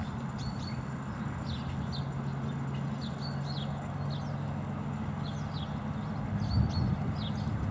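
Small birds chirping over and over over a steady low engine hum, with some wind noise.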